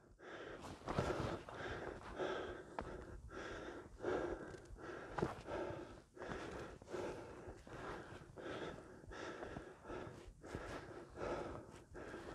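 A hiker's heavy breathing close to the microphone, drawing in and blowing out at about one breath a second from the effort of scrambling over summit boulders with a loaded pack.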